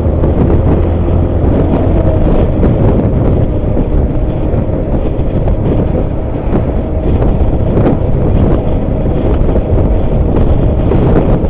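Diesel engine of an ALS intercity bus running through a loud 'bogor' aftermarket exhaust: a steady, deep drone.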